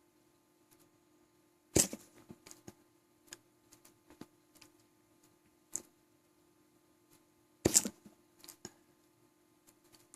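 Two sharp hiccups about six seconds apart, the first a little under two seconds in and the second near eight seconds, with faint clicks in between.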